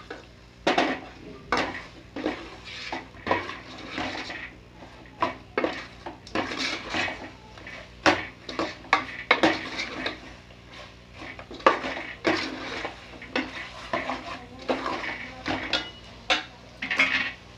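Metal spoon stirring chicken pieces in a metal cooking pot, with many irregular clinks and scrapes of the spoon against the pot's sides and bottom.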